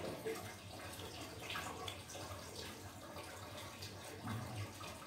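Faint eating sounds from a plastic spoon and a plastic cup of meatball soup, over a steady background hiss.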